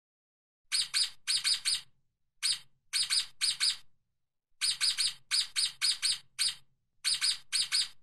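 Stoat giving rapid high-pitched squeaks, about four or five a second, in runs of a few at a time separated by short pauses.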